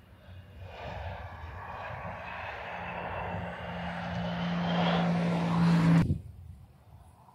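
Turbofan engines of an American Eagle regional jet at takeoff power on the takeoff roll. They build steadily louder with a low steady hum and a slightly rising whine, then cut off suddenly about six seconds in.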